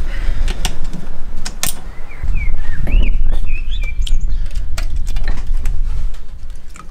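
Sharp metal clicks and knocks of tools working on a Ford Escort manual gearbox as its cover is taken off, over a low rumble that is loudest from about two seconds in. A few short bird chirps come around the middle.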